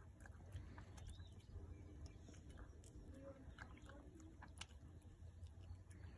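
Faint wet clicks and smacks of a chihuahua licking and chewing at a wedge of cantaloupe held in a hand, over a low steady rumble.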